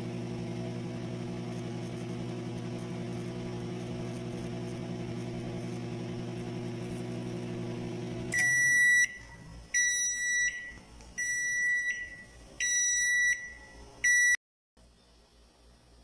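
Microwave oven running with its cover off, its high-voltage transformer giving a steady mains hum. About eight seconds in the hum stops and the oven beeps four times, evenly spaced, then a fifth short beep that cuts off suddenly.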